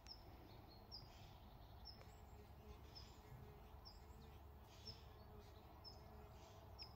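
Faint outdoor quiet with a small bird scolding: one short, high call repeated evenly about once a second.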